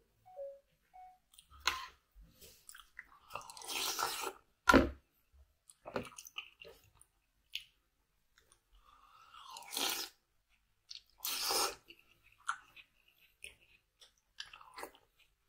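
Close-up eating sounds of a spoonful meal of oxtail soup and rice: wet chewing with several slurps, each about a second long, and one sharp knock about five seconds in.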